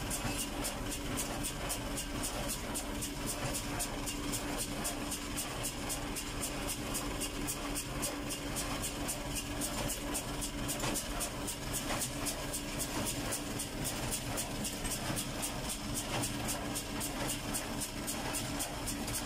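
Fendt 310 Vario tractor's four-cylinder diesel running steadily under load, heard from inside the cab while it pulls a square baler along a hay windrow. A fast, even ticking runs through it, about three ticks a second.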